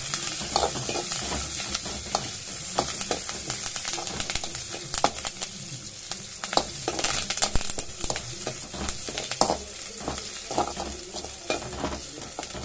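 Chopped shallots, dried red chillies and curry leaves sizzling in hot oil in a metal pan, with a steel spoon scraping and clicking against the pan as it stirs: the tempering (thalippu) for a kuzhambu.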